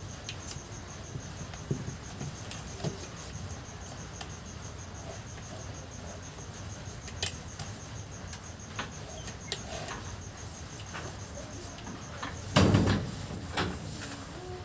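Handling noises as a pump rotor is worked into an electric drill's chuck by hand: scattered light clicks and taps of plastic and metal, then one louder thump near the end as the drill is set down on the table. A faint, high, evenly pulsing chirp runs underneath.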